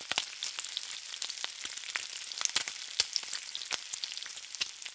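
Frying sizzle: a steady hiss with many irregular sharp crackles and pops, as of food frying in hot fat.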